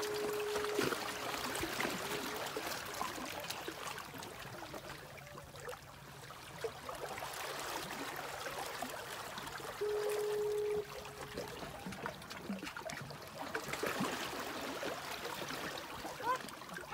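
Seawater trickling and lapping among shoreline rocks. A short steady tone sounds twice, at the start and again about ten seconds in.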